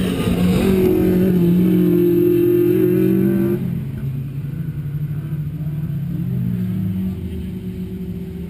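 Autocross car engines: one engine held at high, steady revs, which drops to a lower, quieter run about three and a half seconds in.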